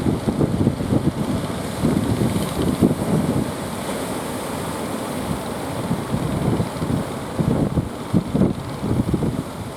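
Wind buffeting the microphone in uneven gusts, over the wash of sea surf and boat motors.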